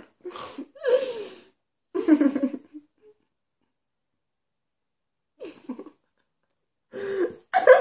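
Muffled giggles and closed-mouth vocal sounds in short bursts, from a woman holding a lipstick between her lips, with a silent gap of about two seconds in the middle and louder laughing near the end.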